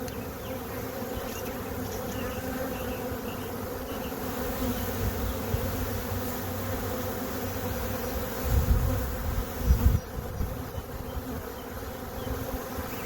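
A swarm of honey bees buzzing steadily in a dense hum. There are a few low bumps about two-thirds of the way through.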